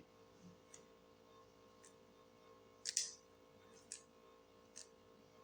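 Rubik's cube layers being turned by hand: a few soft, separate plastic clicks, the loudest about three seconds in.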